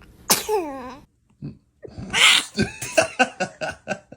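A newborn baby sneezing: a sharp little sneeze about a third of a second in, ending in a falling squeak. Near two seconds comes a breathy burst, then a quick string of short sounds, about five a second.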